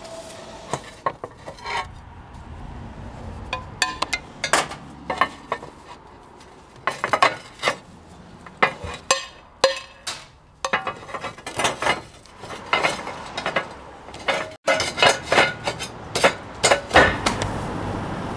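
Glazed clay roof tiles clinking and knocking against each other and the roof as they are handled and laid. In the middle come sharp taps of a hammer knocking the fixing lugs off a tile.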